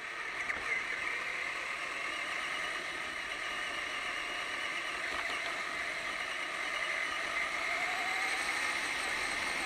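RC monster truck's motor and drivetrain whining steadily as it drives over a dirt road, heard from a camera mounted on the truck, with tyre and road noise underneath. About eight seconds in, the whine rises in pitch as the truck speeds up.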